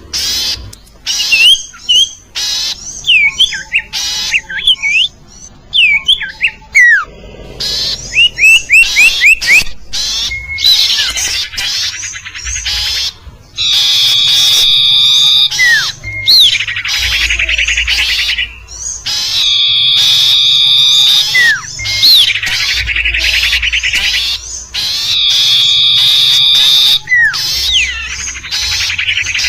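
A sirtu bird lure recording: sharp chirps and short sweeping whistles, then harsh buzzy squawks with a high steady tone, repeated in a cycle about every three seconds in the second half. It is a call played to attract the same species for trapping.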